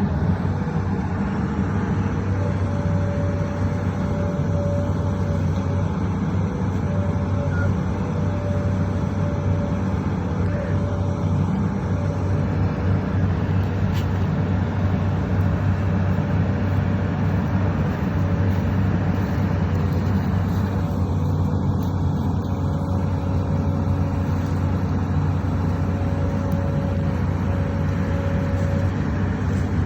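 Excavator engine running steadily with a constant low hum, and a thin steady whine above it that fades in and out.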